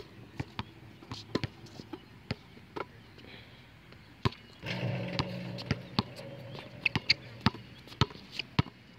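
Basketball bouncing on an outdoor asphalt court as a player dribbles, in sharp, irregular bounces. A steady low hum joins for a couple of seconds about halfway through.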